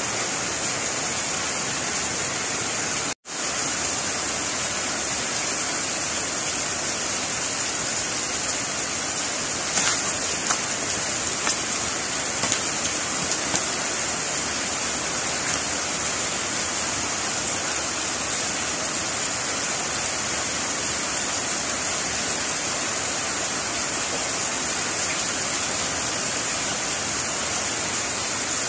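Heavy rain falling, a steady loud hiss. The sound cuts out completely for a moment about three seconds in, and a few faint clicks come through it a little later.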